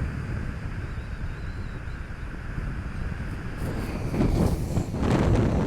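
Strong wind buffeting the phone's microphone in a rough, low rumble, growing louder in gusts about four seconds in.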